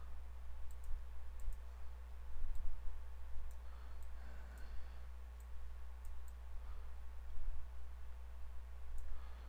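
Scattered faint clicks of a computer mouse button as a brush tool is used to paint, over a steady low electrical hum.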